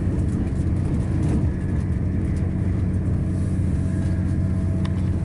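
Steady low rumble of a passenger train running, heard from inside the carriage, with a faint whine joining about three seconds in.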